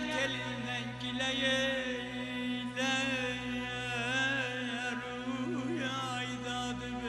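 Male mugham singer (khanende) singing long wordless melismatic runs with quick trills, over a steady low sustained accompanying note.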